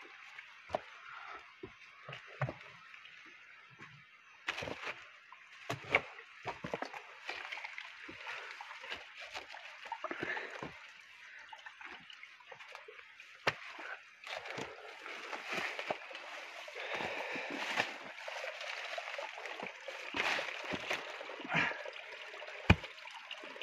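Footsteps and rustling through wet jungle undergrowth and over rocks: leaves and branches brushing, with sharp snaps and knocks scattered throughout. Near the end there is a short scrabbling of hands digging into soil.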